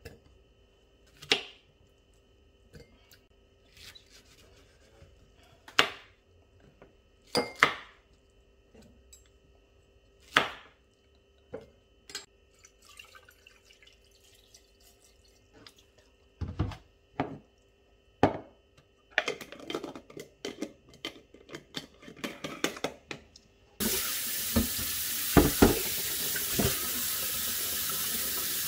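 Pieces of lemon dropped one at a time into an empty glass jar, each landing with a sharp clink, four times over the first ten seconds, followed by scattered knocks and clatter. About 24 seconds in, a kitchen tap starts running into a stainless steel sink, with a glazed ceramic medicine pot being rinsed and knocking against the sink.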